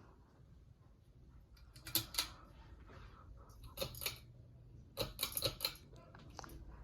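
Ceiling fan running with a low steady hum, broken by three short bunches of sharp clicks and ticks.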